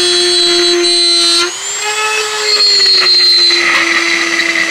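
Corded handheld rotary tool running at high speed with a steady whine, cutting into a plastic kick panel. About a second and a half in, the pitch rises a little, and a rougher cutting noise builds through the second half.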